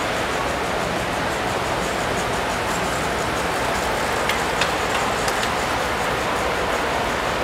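Standard gauge tinplate model trains running on three-rail track: a steady rolling rumble, with a few sharp clicks a little past halfway as a locomotive and its passenger cars pass close by.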